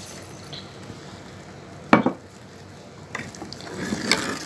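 Steel spoon stirring hot milk and custard in a steel pot over a low hiss, with a sharp clink about two seconds in. Scraping and clinking of the spoon against the pot build up near the end.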